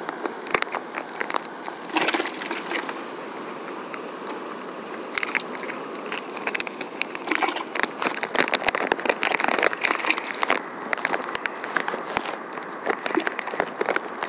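Freshly caught akule (bigeye scad) flapping in a bucket of water, with irregular splashes and knocks that come thickest in the middle, over steady background noise.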